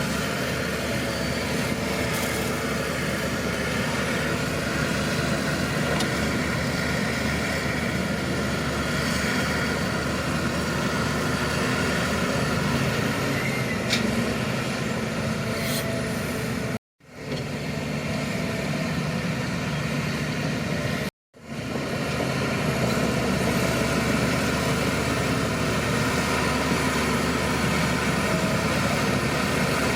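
Shantui crawler bulldozer's diesel engine running steadily, with two sudden momentary cuts to silence about 17 and 21 seconds in.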